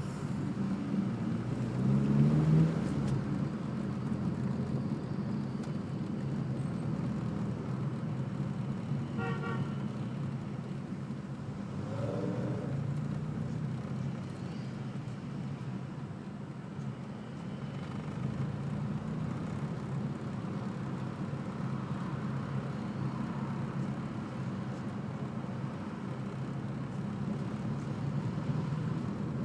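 Car interior noise while driving slowly in town traffic: a steady low hum of engine and road noise. About two seconds in, an engine speeds up and rises in pitch, the loudest moment.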